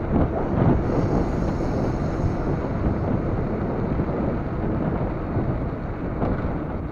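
Wind buffeting the microphone of an EKEN H9R action camera on a moving bicycle: a continuous low, rushing noise that rises and falls.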